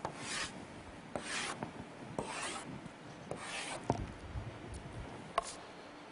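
Chalk drawn across a blackboard in four strokes, each a scratchy hiss about half a second long, roughly one a second. A sharp tap follows near the end.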